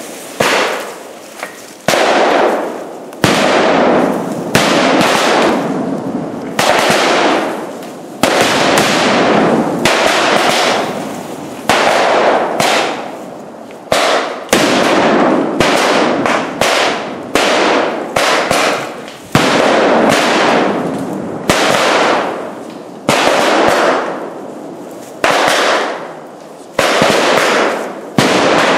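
Fireworks and firecrackers going off one after another, a sharp bang about every second or two, each followed by a hiss that fades over about a second.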